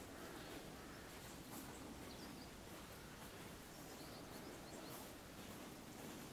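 Quiet outdoor ambience: a low, steady background hiss with a few faint, distant bird chirps.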